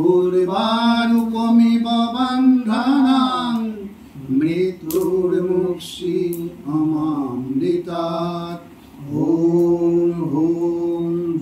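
A man chanting Sanskrit mantras in long, drawn-out held notes, with short pauses for breath about four and nine seconds in: Vedic chanting at a yajna, the fire ritual of a housewarming puja.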